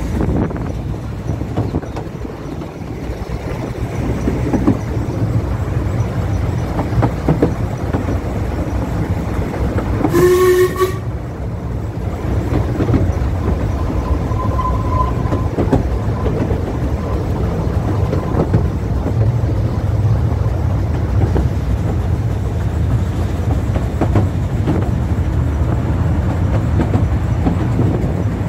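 Ffestiniog Railway narrow-gauge train running, a steady rumble with frequent wheel clicks on the rails. One short whistle blast, about a second long, about ten seconds in.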